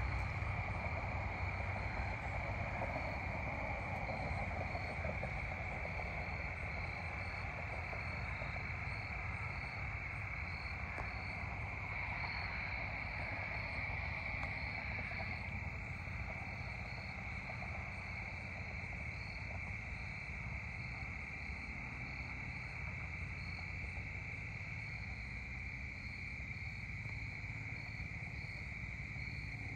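Evening chorus of crickets: a steady high-pitched trill with a fainter, higher chirp repeating a little more than once a second, over a low steady rumble.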